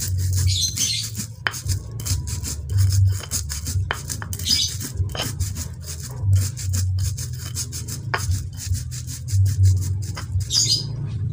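Stone pestle (ulekan) pounding and grinding whole coriander seeds on a flat stone mortar (cobek): a rapid run of sharp stone-on-stone knocks and rubbing as the seeds crack.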